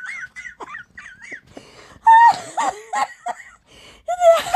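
People laughing: a high-pitched, wheezing laugh in the first second and a half, then louder laughter about two seconds in and again near the end.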